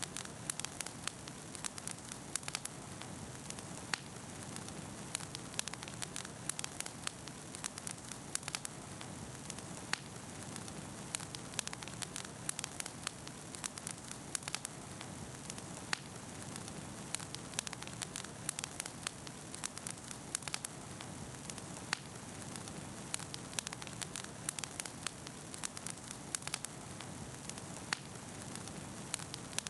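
Bonfire crackling: many irregular sharp pops and snaps over a steady hiss.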